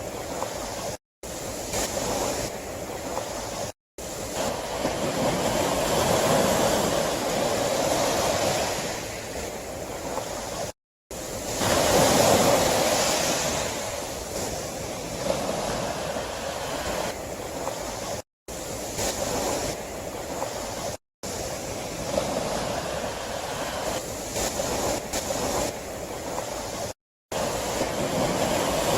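Sea waves washing in, a steady rushing surf that swells and ebbs, with the biggest surge about twelve seconds in. The sound cuts out completely several times for a fraction of a second.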